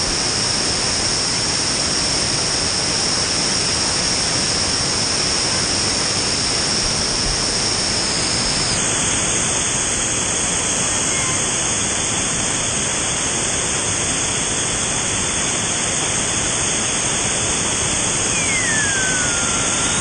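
Waterfall rushing with a loud, steady, even roar, overlaid by a steady high-pitched whine that steps up in pitch about nine seconds in.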